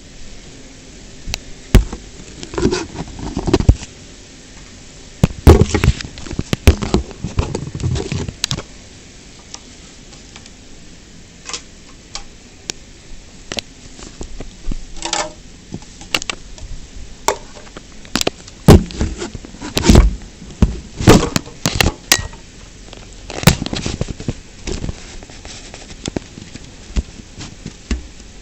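Homemade cardboard ceiling fan spun by hand, rattling and knocking: irregular clusters of sharp clacks and crackles with quieter stretches between them. The hard spinning is shaking its mounting brackets and supports loose.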